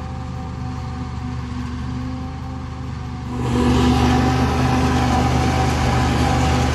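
Tractor and trailed forage harvester chopping standing maize: a steady engine drone that turns suddenly louder and fuller about three and a half seconds in, close to the machine.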